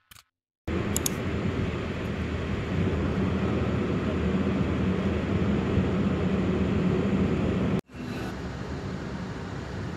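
Steady road and engine noise inside a moving car's cabin, starting just under a second in. It breaks off for an instant near the end and comes back slightly quieter.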